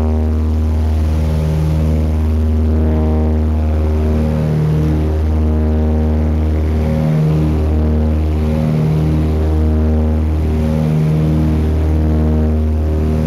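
Cabin drone of a small twin-engine turboprop plane's engines and propellers in flight, a loud steady hum that throbs, swelling and fading every second or two.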